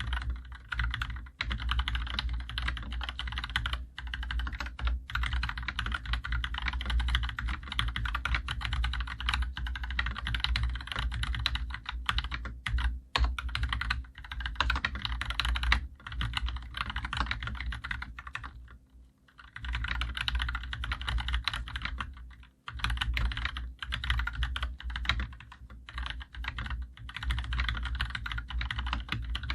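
Typing on a COX CK108 BT full-size mechanical keyboard with Gateron Yellow linear switches and double-shot PBT keycaps: a quick, continuous run of keystrokes, with a short pause about two-thirds of the way through. The strokes sound solid and heavy, with a slight ping. The lubricated stabilizers give no rattle.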